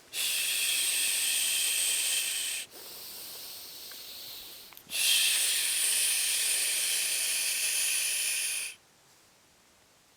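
Air hissing in two long, loud spells of about two and a half and four seconds, with a softer hiss between them. Each starts and stops abruptly, the last cutting off sharply near the end.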